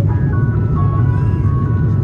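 Steady low rumble of an Airbus A350's cabin in flight during descent. Over it runs a thin tune of high notes stepping in pitch every few tenths of a second.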